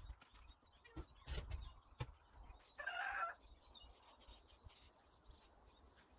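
A short bird call about three seconds in, after a few faint knocks and taps.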